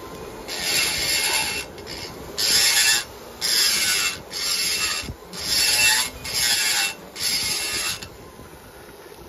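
Small pen-style die grinder's burr cutting into a two-stroke motorcycle cylinder to open an intake port, in about seven short passes of under a second each, with the quieter tool between them.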